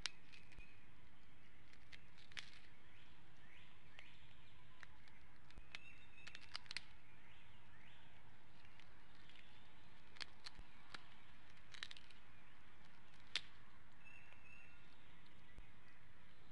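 Outdoor ambience: a steady hiss with faint, scattered bird chirps and occasional sharp clicks, the loudest about 13 seconds in.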